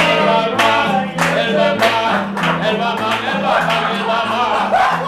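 A song playing, with a steady beat and a singing voice.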